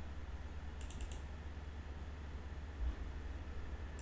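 A quick run of about four computer-keyboard keystrokes about a second in, over a steady low electrical hum, with a soft low thump near three seconds.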